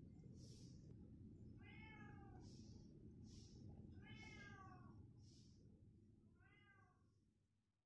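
A kitten mewing three times, short high-pitched mews that fall in pitch at the end, spaced about two seconds apart, faint over a low steady rumble.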